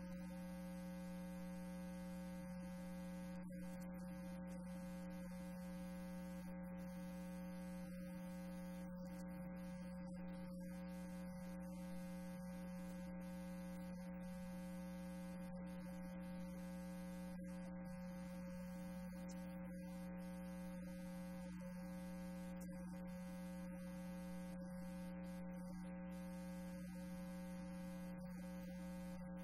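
Steady electrical mains hum with a buzzy tone.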